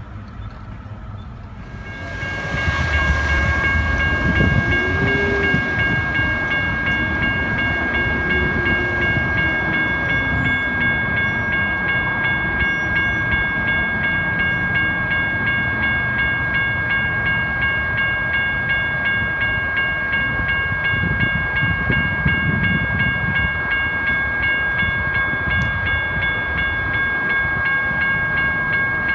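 Railroad crossing warning bell ringing steadily over road-traffic rumble. It starts abruptly about two seconds in and carries on through the rest.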